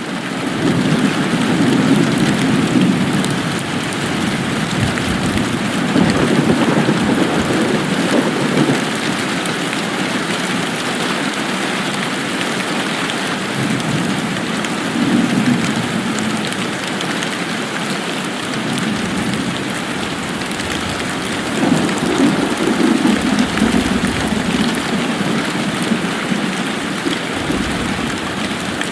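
Steady rain falling, with a low rumble that swells and fades several times.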